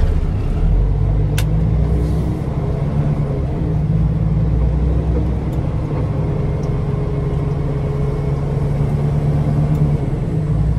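Semi truck's diesel engine running, heard from inside the cab as the truck moves off: a steady low rumble, with one sharp click about a second and a half in.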